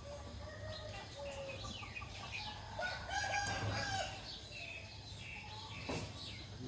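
A rooster crows once, a long call about three seconds in, while small birds chirp around it. A single sharp click comes near the end.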